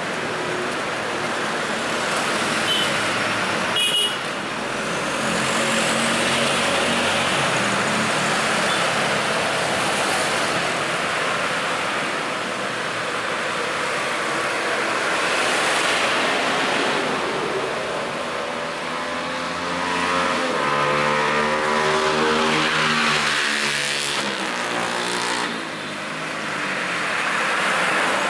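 Busy road traffic: a steady flow of vehicles passing, their engines and tyres swelling and fading one after another. There is a brief sharp high sound about four seconds in.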